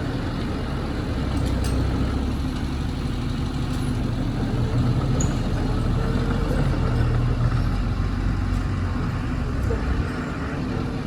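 Diesel engine of heavy earthmoving equipment running steadily, a low drone that builds under load from about a second in and eases off near the end.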